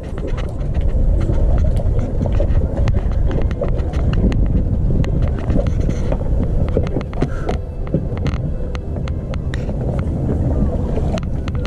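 Wind buffeting an action camera's microphone as a loud, steady low rumble, with many small clicks and knocks from the rod, reel and landing net being handled while a fish is played.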